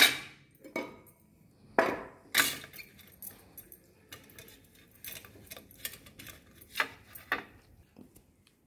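Idli-stand mould plates clinking and knocking against each other and the stand as they are handled after greasing: a scatter of short, sharp clinks, the loudest two about two seconds in.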